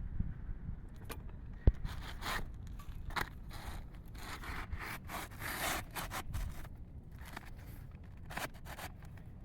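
Rough scraping and rustling of asphalt roof shingles being handled and slid, in many short strokes, with one sharp click about a second and a half in.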